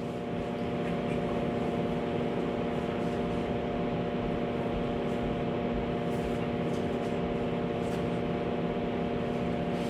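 Steady room hum and hiss, with several fixed tones held throughout, like a ventilation or sound-system hum.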